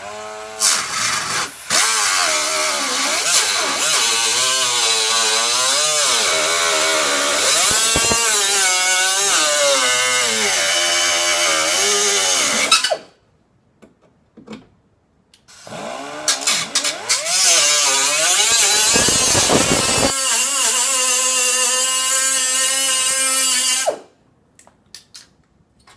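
Die grinder trimming the sheet-metal rocker panel, running in two long passes about three seconds apart. Its pitch dips and rises as it bites into the metal during the first pass, and holds steadier in the second.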